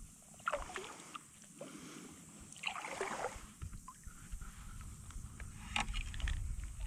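A kayak paddle dipping and stroking through calm water, with a louder swish about three seconds in and a few light knocks.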